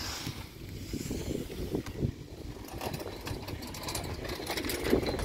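A fixed-grip quad chairlift's haul rope and chair grip rolling over a tower's sheave train: a low rumble with a run of knocks that grows louder toward the end as the chair passes the tower.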